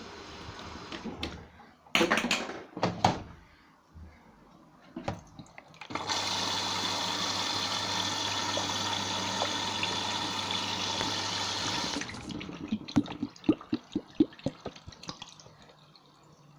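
Liquid rushing steadily into a washing machine for about six seconds, with clunks and rattles before and a run of small knocks after.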